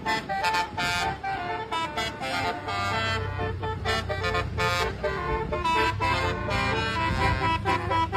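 Basuri musical horn on a vehicle, playing a quick 'telolet' melody of short tooting notes, over a low steady hum.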